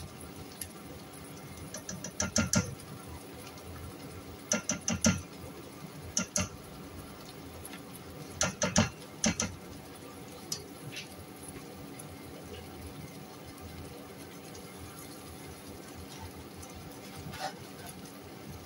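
Sauce simmering in a pan, a low steady sizzle and bubble, broken by four short clusters of quick clicks and taps in the first half, from the seasoning packet and utensils at the pan.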